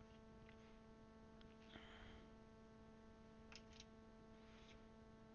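Near silence: a steady electrical hum with a few faint clicks of plastic keycaps being pressed onto a mechanical keyboard's Cherry switches.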